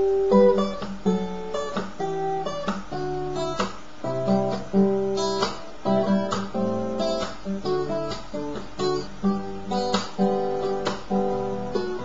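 Solo acoustic guitar played fingerstyle: a steady run of plucked notes with sharp attacks, a melody over lower bass notes.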